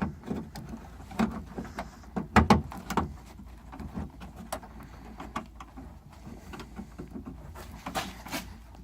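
Irregular clicks, knocks and rattles of a door lock cylinder being worked up into position inside the steel door shell of a 2003 Chevy 1500 pickup, with a cluster of louder knocks about two and a half seconds in and a few more near the end.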